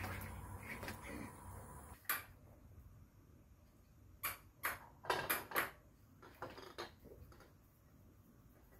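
A steady low hum for the first two seconds, then a run of light, sharp clinks and knocks a few seconds in as glass teacups and lids are set down and handled on a glass-topped table.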